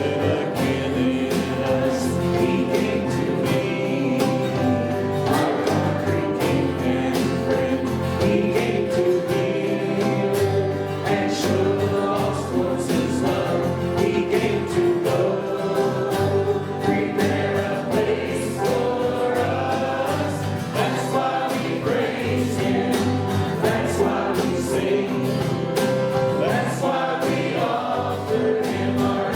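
Worship band playing a gospel song, with voices singing together over instruments and drums.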